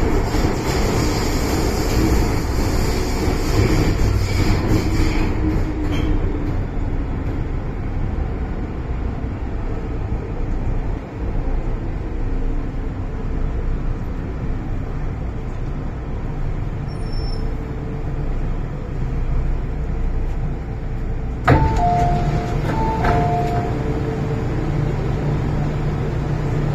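MTR Island Line M-Train running, heard from inside the carriage as a steady rumble. A click about 21 s in, then a two-note chime that sounds twice.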